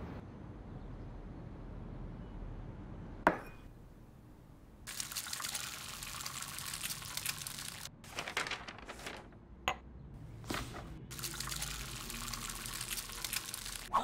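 A sharp click about three seconds in, then water running in two stretches of about three seconds each, with short splashes between them.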